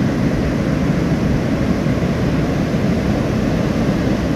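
Wind buffeting the microphone: a steady, rough low rumble with no engine tone in it.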